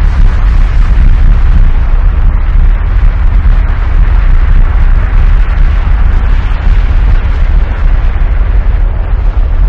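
Loud, continuous deep rumble with a rushing hiss above it, a volcano-eruption sound effect.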